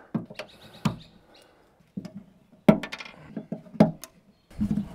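Leftover carpet retaining clips being popped out of a Land Cruiser 80 Series tailgate: a run of sharp clicks and knocks. The loudest come about one, three and four seconds in.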